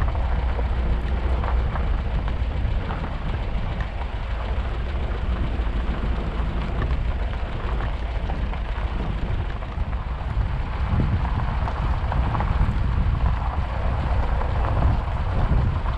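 Vehicle driving on a gravel road: a steady low engine rumble with road noise from the tyres.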